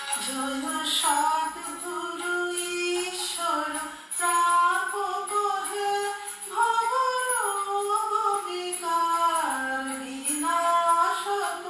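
A woman singing a Bengali devotional Guru Vandana, a held, melismatic melody with musical accompaniment.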